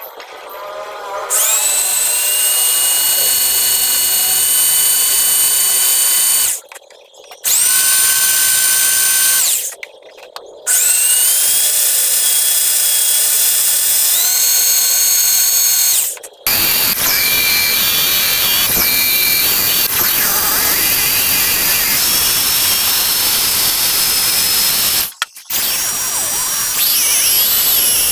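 Small electric power tool motor whining at a high pitch in repeated runs. It stops and starts again several times and spins up each time, and the later runs sound rougher and noisier.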